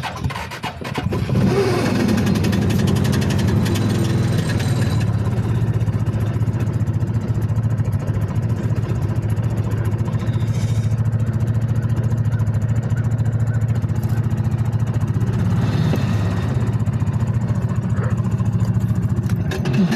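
2021 Realtree UT 400 side-by-side engine just after a cold start: it builds up over the first second or two, then idles steadily at just under 2,000 rpm.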